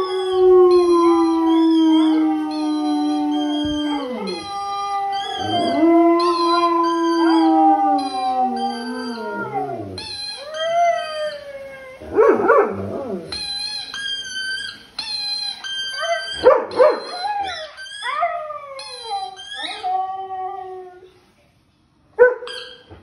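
Dogs howling: a German shepherd howling along with a husky howling on a television. Long drawn-out howls slide slowly down in pitch and overlap at first, then give way to shorter, wavering, rougher calls. The howling dies away shortly before the end, with one short call after.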